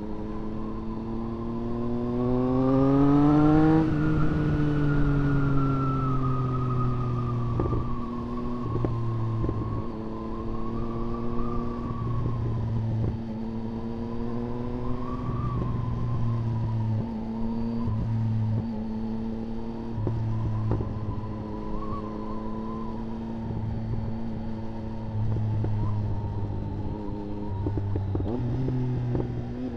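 Motorcycle engine under way: it accelerates with rising pitch for about four seconds, eases off, then holds a steady cruise with small throttle changes, over wind rushing past the rider.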